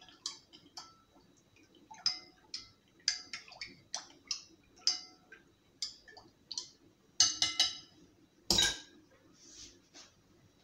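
A spoon stirring liquid in a glass bowl, clinking against the glass in irregular short taps that ring faintly. A louder knock comes near the end.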